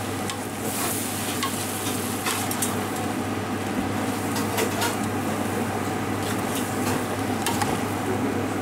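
Mixed vegetables (peppers, baby sweetcorn, beans, potato) sizzling in oil in a large pot while being stirred, with scattered scrapes and clicks of the spatula against the pot. A steady low hum runs underneath.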